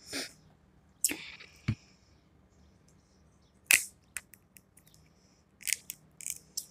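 Shellfish shells being cracked and peeled apart by hand, close to the microphone: a scattered string of sharp cracks and crackles at irregular intervals.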